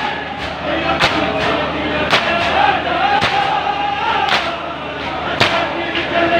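A crowd of men chanting a noha, a mourning lament, in unison while beating their chests in matam. A sharp slap lands in time about once a second, with softer slaps between.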